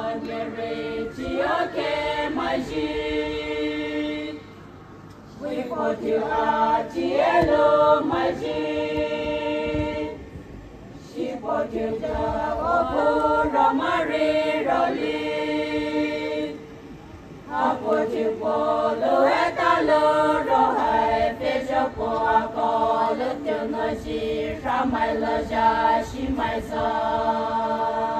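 A group of voices singing or chanting together in phrases of about five seconds, with short pauses between them.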